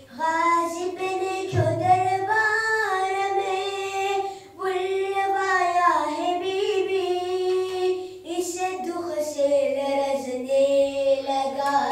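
A boy singing an unaccompanied Arabic devotional chant into a handheld microphone, in long held, gliding notes, with short breaths about four seconds in and again near eight seconds.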